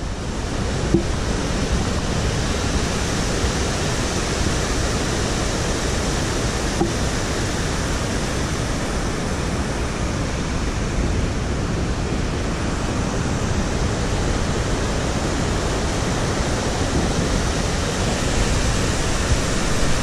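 Aharbal waterfall and the Veshaw River's rapids rushing steadily through a rocky gorge.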